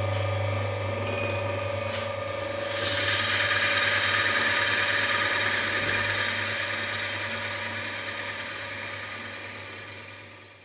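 Lathe running with a long drill bit in its chuck, boring into a square wooden blank held in a jig: a steady motor hum with a constant tone. About three seconds in, the hiss of the bit cutting the wood comes in strongly, then slowly tapers off, and the machine stops at the very end.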